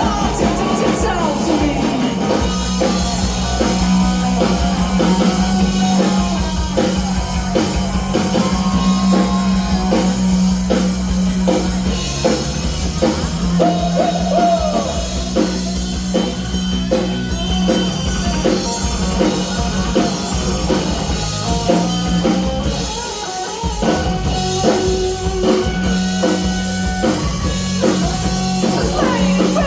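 Rock band playing live, with a steady drum-kit beat and guitar.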